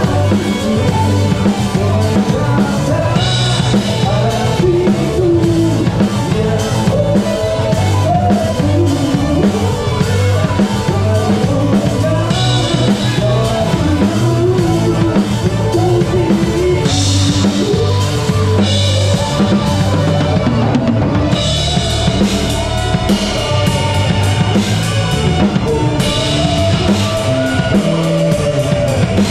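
Drum kit played up close in a live band: kick drum, snare and cymbals keep a steady beat over the band's other instruments, with cymbal washes coming and going several times.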